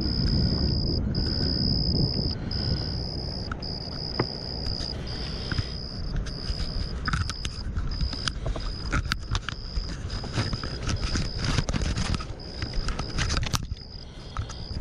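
An insect trilling steadily on one high pitch, the trill broken by short regular gaps, over a low rumbling noise. In the second half come a run of sharp clicks and knocks.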